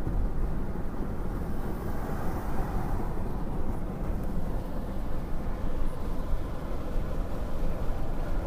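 Tyre and engine noise heard inside a car's cabin while cruising at highway speed: a steady low noise with no sudden events.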